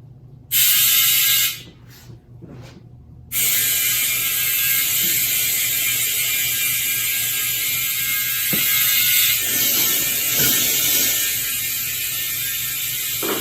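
Compressed air hissing from a tire inflator into a freshly mounted tire: a one-second blast, two short puffs, then a long continuous blast. The bead is stubborn and not yet seating.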